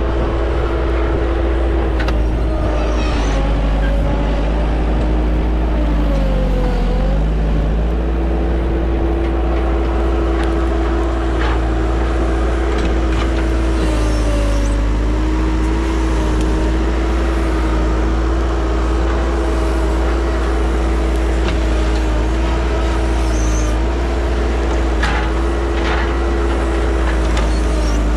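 Bobcat 873 skid steer's diesel engine running steadily at working revs. Its pitch sags briefly about seven seconds in and then recovers, as if pulled down under load. A few faint knocks sound later on.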